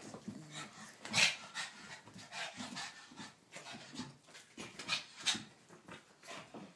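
A pug panting in short, quick breaths as it leaps and tugs at a toy, with two louder, sharper sounds about a second in and a little after five seconds.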